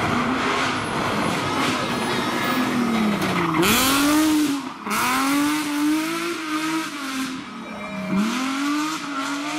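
Rally car engine revving hard through a tight hairpin. The note drops as the throttle is lifted about three and a half seconds in and again near the end, then climbs as the car accelerates away. Around four seconds in there is a burst of tyre hiss as the car slides.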